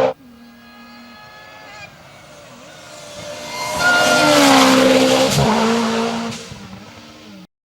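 Lancia Delta S4 Group B rally car's twin-charged four-cylinder engine heard from a distance, growing louder as it comes by about four seconds in, its pitch dropping slightly as it passes, then fading away before the sound cuts off near the end.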